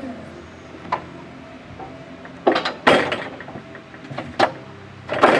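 Electric reach truck's hydraulic pump motor whining in short runs as the mast and fork carriage are worked, broken by several sharp clicks and clunks from the truck's controls and mast.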